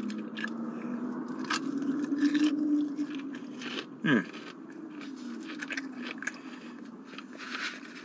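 Close-up chewing of a breaded chicken tender, with wet mouth clicks and light scraping, over a steady low hum.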